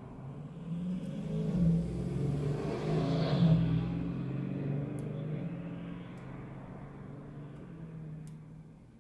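A motor vehicle engine passing by, swelling to its loudest about three seconds in and then fading away, with a few faint clicks.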